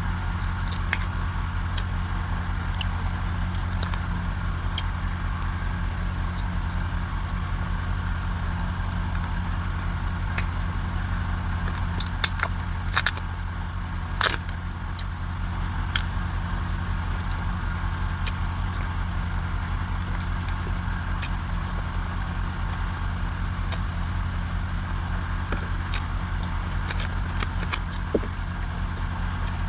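A steady low motor hum runs throughout. A few sharp clicks and knocks come about halfway through and again near the end.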